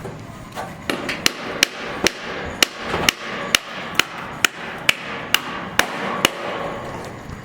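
A hammer striking repeatedly at a steady rhythm, about two blows a second, roughly a dozen sharp strikes in a row.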